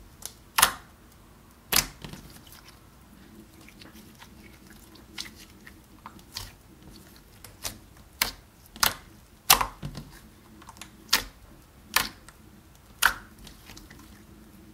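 Clear slime being kneaded and stretched by hand, giving irregular sharp clicks and pops, about one a second.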